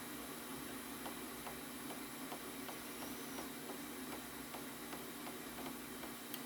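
Light, evenly spaced ticking, about three ticks a second, over a steady low hum, ending in one sharper click.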